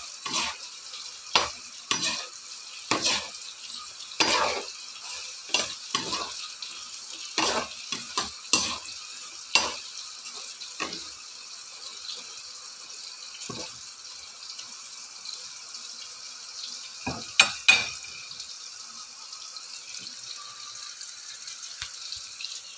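Potato fries sizzling in hot oil in a frying pan, a steady hiss. A metal slotted spoon knocks and scrapes against the pan as they are stirred, about once a second at first, then twice in quick succession near the end.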